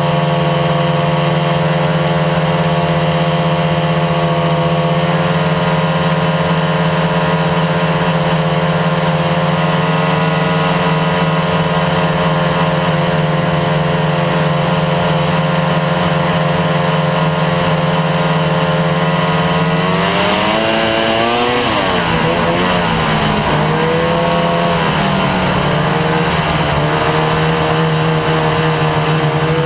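Snowmobile engine running at steady cruising speed along the trail. About twenty seconds in its pitch swings briefly up, drops lower for a few seconds as the throttle eases, then climbs back to cruising pitch.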